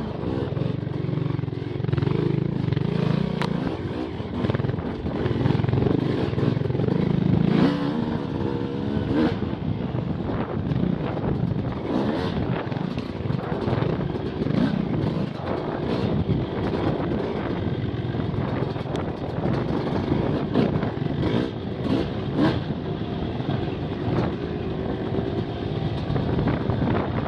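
Off-road motorcycle engines running hard and revving up and down over rough trail ground, with frequent knocks and rattles from the bikes.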